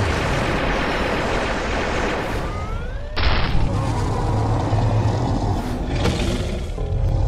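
Layered cartoon sound effects: a continuous rumble of booms and blasts, with a few rising tones and then a sudden loud hit about three seconds in.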